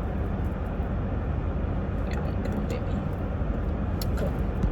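Car engine idling steadily, heard from inside the car, with a few faint clicks.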